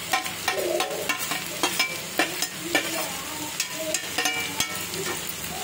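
Chopped vegetables sizzling in oil in a frying pan, with a run of sharp clicks and scrapes of a metal spoon against a steel bowl and the pan as chopped ginger is tipped in.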